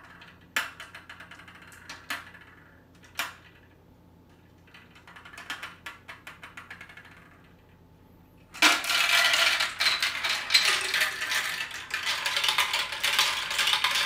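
Marbles running through a plastic Marbleworks marble run: a few sharp plastic clicks, then a short run of ticks, then a dense, loud clatter of marbles rattling down the track for the last third.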